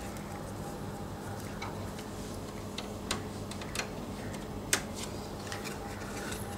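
A few faint clicks and taps from handling and plugging in the display panel of an opened UPS, the sharpest about three-quarters of the way through, over a steady low hum.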